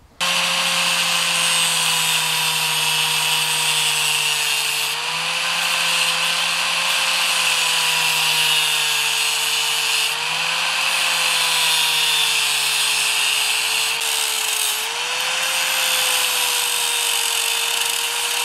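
Electric angle grinder running and grinding into a metal transistor heat sink, cutting grooves in it. The motor's pitch sags slowly under load and picks back up three times, about every five seconds, over a steady hiss of abrasion.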